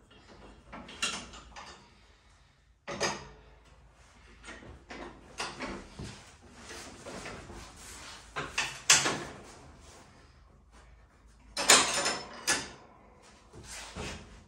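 Irregular clanks, knocks and scrapes from the mower deck and its linkage being handled and fitted by hand under a John Deere 275 lawn tractor, with the loudest knocks about nine and twelve seconds in.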